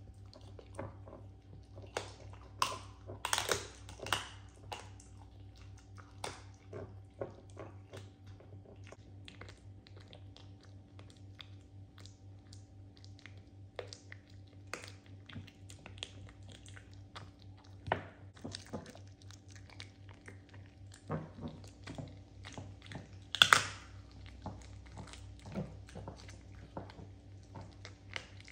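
Dachshund chewing a raw duck leg: irregular bites and crunches of bone, loudest a few seconds in and once sharply about three-quarters of the way through.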